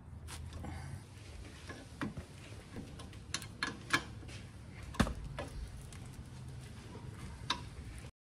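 Irregular metallic clicks and taps of hand tools against a car's rear brake caliper during reassembly, over a low hum in the background. The sound cuts off abruptly near the end.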